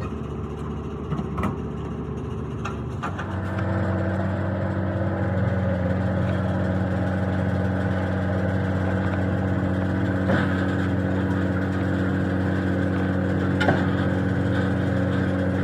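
An engine running steadily at constant speed, louder from about three and a half seconds in, with a few sharp clicks or knocks over it.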